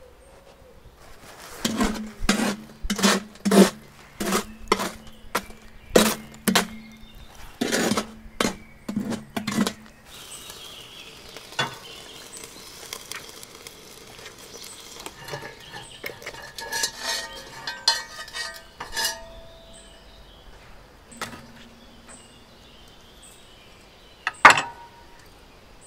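Cast iron pot and lid clanking as they are handled: a run of sharp metallic knocks with a low ring for about eight seconds, then lighter clinks and scraping. One louder knock near the end.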